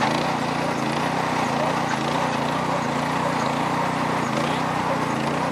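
Small engine of a lure-coursing lure machine running steadily, its pitch wavering slightly.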